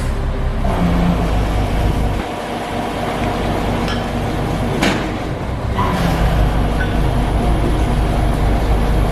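A heavy vehicle engine running steadily with a low hum. The hum eases off about two seconds in and comes back about six seconds in. A short hiss sounds about five seconds in.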